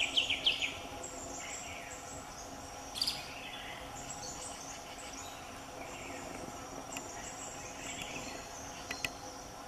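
Forest ambience: a steady chorus of insects with bird calls. A quick run of chirping notes is heard at the very start, a short noisy burst comes about three seconds in, and two sharp clicks come near the end.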